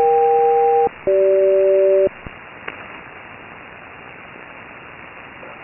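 HF radio SELCAL call: two pulses of about one second, each two steady tones sounding together, the second pair lower than the first, with a short gap between, then steady receiver hiss. It is a SELCAL check sent by the ground station to alert one aircraft's crew, heard over single-sideband radio.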